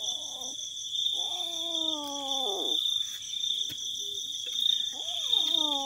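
Ginger kitten yowling with a snake held in its mouth: a short call at the start, then two long drawn-out yowls of about two seconds, each dropping in pitch at the end. Crickets chirr steadily and high behind.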